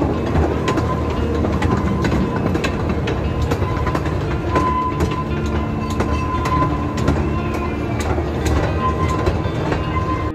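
Amusement-park ride car running on its rails, with a steady rumble, irregular clacks of the wheels over the track, and a thin squeal that comes and goes.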